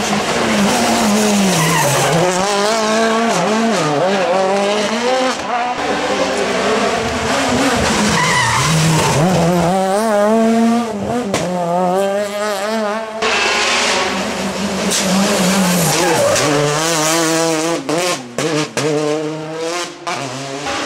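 Rally car engines revving hard as the cars go through a right-hand junction one after another, the engine note dropping under braking and climbing again with each gear as they pull away.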